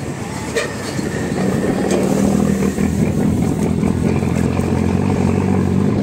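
Engine of a heavy REO 6x6 cargo truck loaded with sugar cane running as it drives, getting louder about a second and a half in, with a few light clicks near the start.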